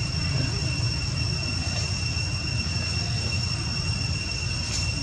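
A steady high-pitched whine, one held tone with a fainter overtone, over a constant low rumble.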